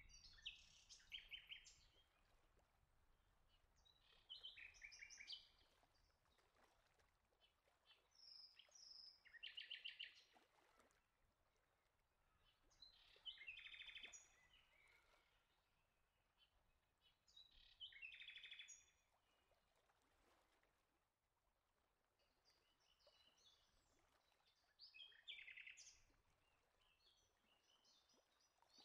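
Faint bird song: short chirping phrases, each lasting about a second, repeated every four to five seconds.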